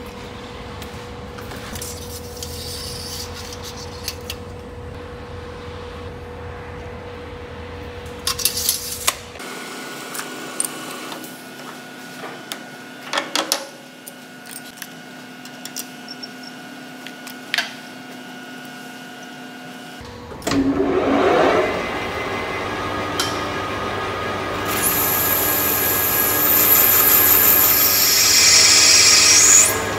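Metal lathe work on a steel hydraulic cylinder rod: a few sharp knocks and clicks while the rod is trued in the four-jaw chuck. The lathe starts about 20 seconds in, and the turning tool cuts the spinning rod, getting louder and high-pitched in the last few seconds.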